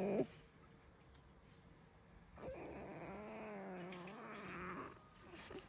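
Pet fox making its creaky, drawn-out whine of protest at being stroked: the end of one call right at the start, then a second wavering call of about two and a half seconds starting roughly two and a half seconds in.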